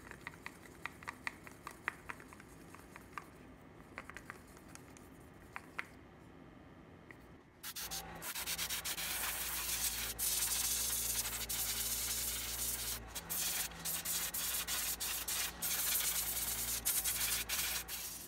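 A wooden stick stirs acrylic paint in a plastic cup, making faint scattered scraping clicks. About eight seconds in an airbrush starts spraying a yellow base coat, a loud steady hiss with a low hum underneath, broken by short pauses as the trigger is let off.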